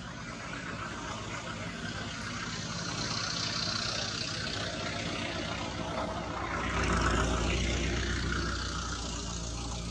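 Engine noise of a passing motor vehicle, swelling to its loudest about seven seconds in, with a low hum underneath, then easing off.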